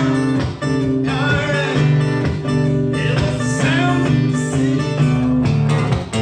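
Live country-style band music, an instrumental stretch: electric or acoustic guitar playing a lead line with bent notes over sustained bass notes.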